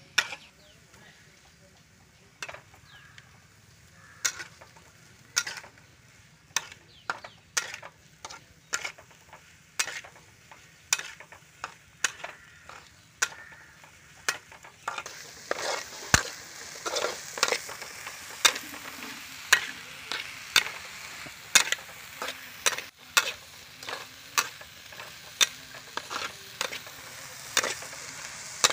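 Metal spatula scraping and knocking against a steel wok about once a second as small shrimps are stir-fried. About halfway through, a steady frying sizzle rises under the strokes.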